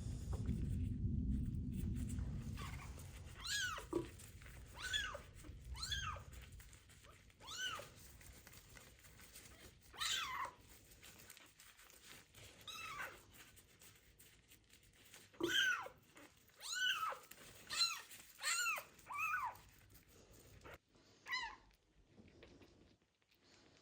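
A kitten meowing repeatedly, about a dozen short, high-pitched meows that rise and fall, with gaps of a second or more between them and a cluster of quick ones near the end. A low rumble underneath fades away over the first few seconds.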